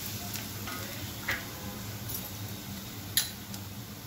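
Chopped onion frying in oil in a steel kadhai while a wooden spatula stirs it, with a few light knocks of the spatula on the pan and a sharper knock about three seconds in.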